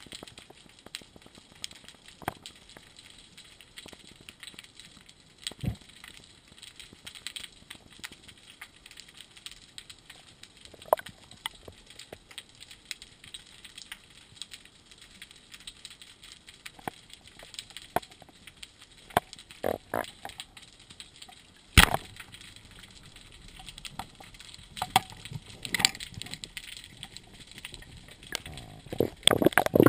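Underwater sound through a GoPro's waterproof housing: scattered clicks and crackles, with one sharp loud crack about two-thirds of the way through and a burst of rushing, splashing noise near the end.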